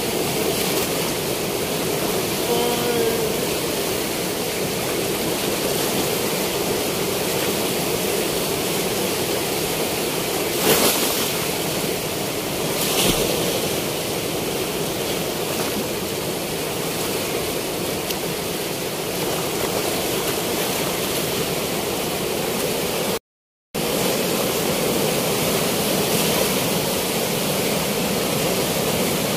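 Steady rush of river water pouring through the opened gates of a weir, an even wash of noise that drops out for a split second about three quarters of the way in.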